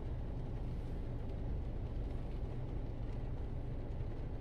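Car engine idling with a steady low rumble.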